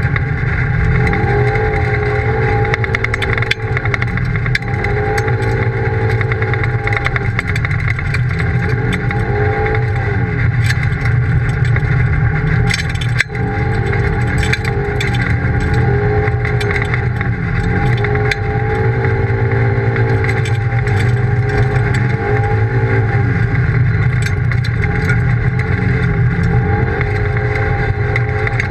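Polaris RZR side-by-side's engine running under way, its pitch rising and falling again and again as the throttle is worked, over a steady low rumble. About halfway through the sound dips briefly.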